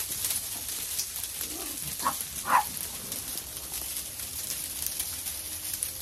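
Sleet pattering steadily on a greenhouse roof, a fine constant hiss with light ticks. Two short animal calls come about two seconds in.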